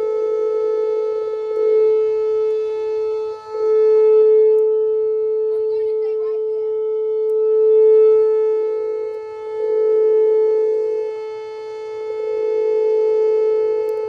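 Whelen WPS 2809 electronic outdoor warning siren sounding a steady tone that holds one pitch and swells louder and softer every few seconds.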